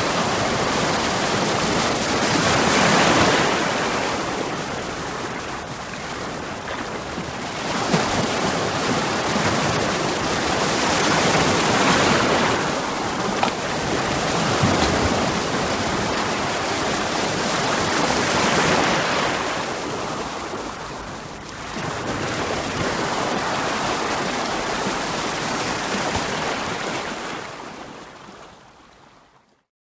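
Ocean waves breaking on rocks, a steady rush of surf that swells and ebbs every few seconds. The sound fades away to silence just before the end.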